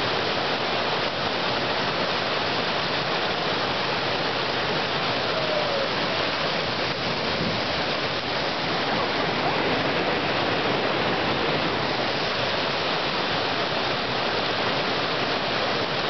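Steady rush of whitewater rapids, an even, unbroken roar of churning river water.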